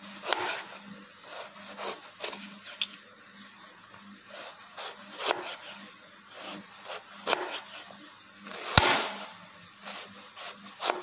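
Chef's knife slicing a carrot lengthwise into thin slabs on a plastic chopping board: a slow, irregular series of rasping cuts, each ending in a tap of the blade on the board, the loudest knock about nine seconds in.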